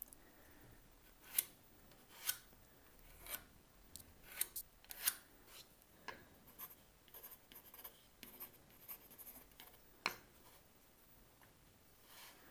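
Pencil scratching along the edge of a triangle pattern as it traces onto basswood plywood, in short irregular strokes with a few sharper ticks.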